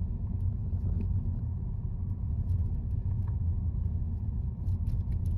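Car driving on an asphalt road, heard from inside the cabin: a steady low rumble of road and engine noise.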